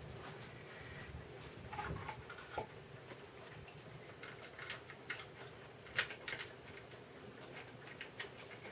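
Faint scattered clicks and light taps from small guitar parts and hand tools being handled, the sharpest about six seconds in, over a faint steady room hum.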